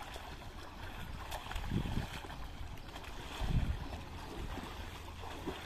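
Pool water splashing and lapping as a child paddles on an inflatable float, with two low rumbles, likely wind on the microphone, about two and three and a half seconds in.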